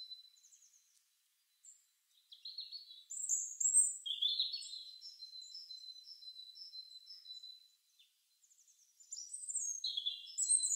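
Small birds chirping and twittering, high quick calls that start about two seconds in, die away, and start again near the end.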